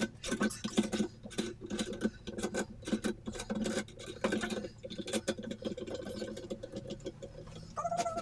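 Hand tools clicking and rattling on the motorcycle in quick, irregular runs of small metallic clicks. A brief pitched squeak comes near the end.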